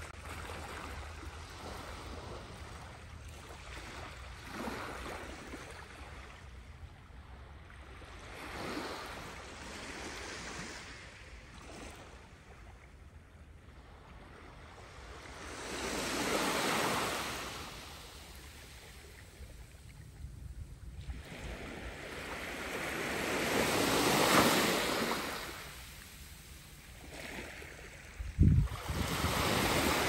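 Small waves of a calm sea lapping and washing up a sandy shore, each wash swelling and fading over a few seconds, the biggest about halfway through and again a little past two-thirds in. A low wind rumble runs on the microphone, with a brief low thump near the end.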